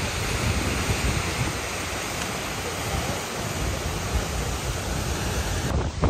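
Seljalandsfoss waterfall pouring over the cliff: a steady rush of falling water.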